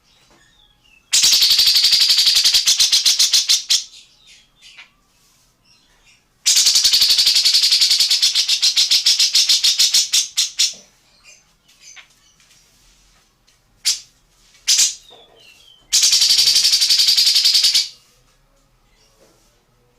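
Recorded bird calls: three long, harsh rattling trills of very rapid pulses, with short faint chirps between them.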